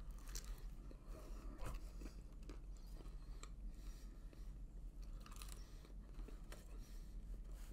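A man chewing a piece of pizza crust with his mouth close to the microphone, with a few short crunches scattered through it.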